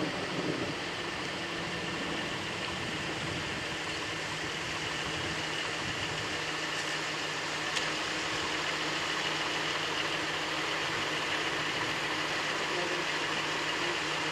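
Steady fan-like hiss over a low hum, the air-conditioning blower and idling engine heard inside a car; a single faint click about eight seconds in.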